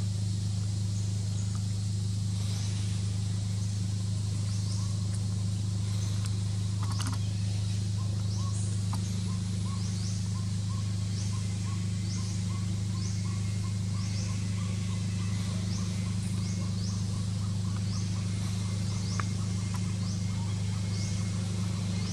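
A steady low hum with short, high, rising chirps repeating a little more often than once a second. From about nine seconds in, a faint run of quicker ticking calls joins at about two a second.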